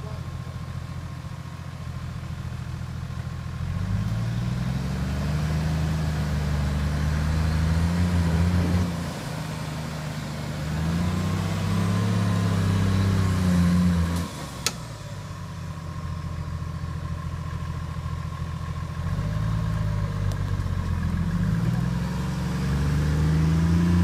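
Off-road SUV engine pulling under load in three long surges, each rising in pitch, holding and then dropping back toward idle, as the vehicle crawls along a steep side slope. A single sharp click comes about halfway through.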